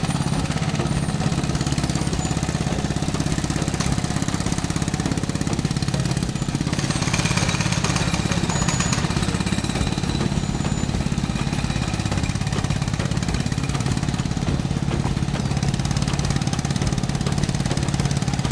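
Small electric motor of a miniature model water pump running with a steady, rapid buzz.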